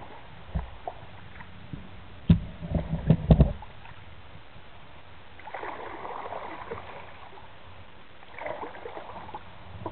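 Kayak paddle strokes in the water, with the blade splashing twice in the second half. A quick cluster of loud knocks comes a couple of seconds in.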